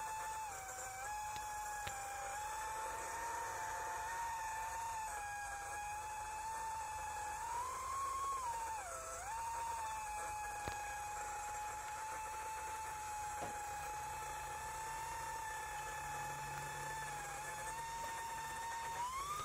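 Mini quadcopter's brushless motors whining in flight: a steady high-pitched tone that rises and falls with the throttle, climbing about eight seconds in, dipping sharply a second later, and rising again at the end.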